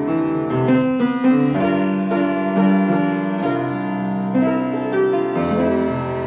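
Upright piano played with both hands: chords of held notes, changing about once a second.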